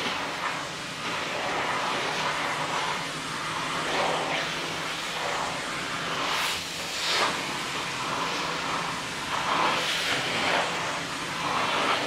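Vacuum cleaner running steadily, its floor nozzle being drawn over a dog's coat. The suction hiss swells and eases every few seconds as the head is moved across the fur.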